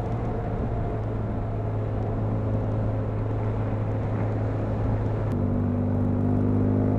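BMW R1200GS boxer-twin engine running at a steady road speed, with wind and road noise over it. The engine note changes abruptly a little over five seconds in.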